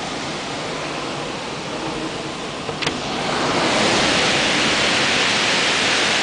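Heavy rain and strong gusting wind of a severe thunderstorm, a dense steady rushing that grows louder about three seconds in, with a brief click just before.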